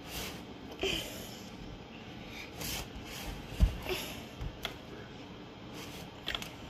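Ice cream scoop scraping and digging into hard ice cream in a plastic tub, with scattered knocks of the scoop against the tub and one louder thump about three and a half seconds in.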